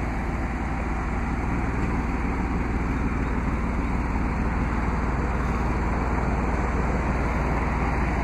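Steady low rumble, like a road vehicle running.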